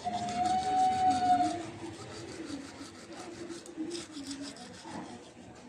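Toothbrush scrubbing the teeth in rapid, even strokes, with a drawn-out throaty hawking sound from the brusher over the first second and a half.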